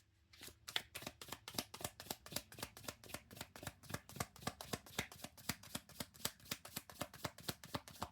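A deck of tarot cards being shuffled by hand: a steady run of quick card clicks, about five or six a second.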